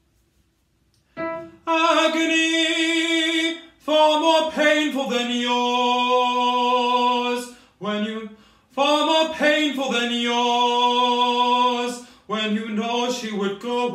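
A man singing vocal warm-up phrases on open vowels, unaccompanied. After a second of silence come several phrases, some sliding between pitches and some held as long sustained notes.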